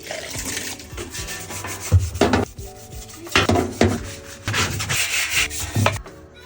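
Scrubbing during washing-machine cleaning: a series of uneven rubbing strokes, with quiet background music underneath.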